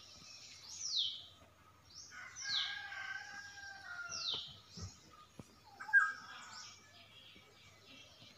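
Birds calling: one bird repeats a short high call that falls in pitch, about every second and a half. A rooster crows from about two to four seconds in, and a short loud call comes about six seconds in.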